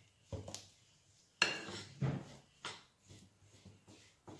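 A metal fork clinking and scraping against a white ceramic bowl while stirring olive oil into coarse powdered bsisa: a run of irregular sharp clinks, the loudest about one and a half seconds in.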